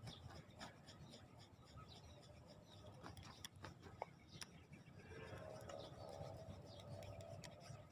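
Near silence: faint scattered clicks and handling noises, with a faint low murmur from about five seconds in.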